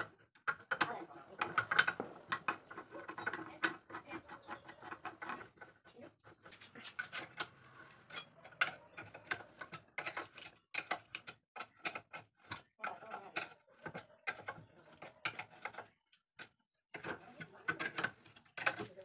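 Hand tools on a McPherson strut assembly and its coil-spring compressor: spanners and a hex key working the nuts, giving irregular metallic clicks, clinks and knocks.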